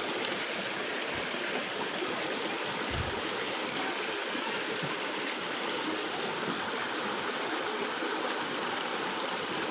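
Shallow rocky river running steadily, water rushing and rippling over stones in a small riffle.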